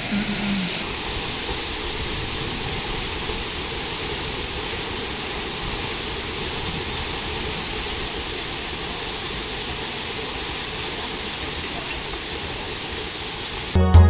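Waterfall in heavy flow, its jet falling straight into the plunge pool: a steady rushing hiss.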